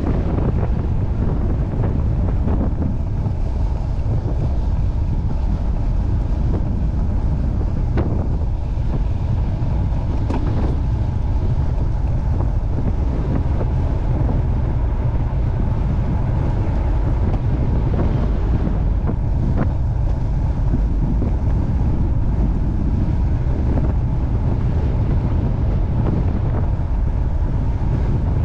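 Wind buffeting the microphone: a steady low rumble of wind noise, with a few faint ticks.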